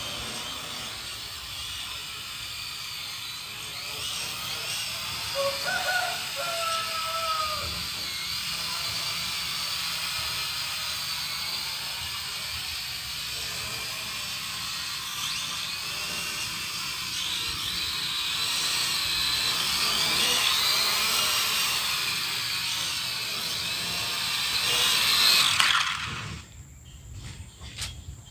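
Small toy quadcopter with UDI U46 motors whining in flight, its pitch wavering as the throttle changes. The whine grows louder as the drone comes down close, then cuts off suddenly a couple of seconds before the end.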